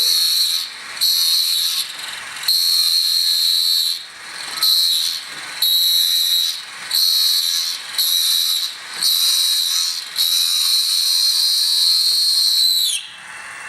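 Electric drill motor whining at high speed in about nine on-off runs of a second or so as the trigger is squeezed and eased, drilling the first hole in an AR lower receiver forging. The last, longer run winds down with a falling pitch near the end.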